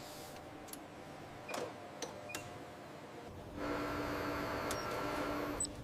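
A few light mechanical clicks and taps, then a steady machine hum with a held tone from about three and a half seconds in.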